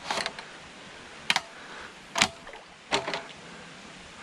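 Four sharp knocks or clacks, roughly a second apart, some with a brief ringing after them.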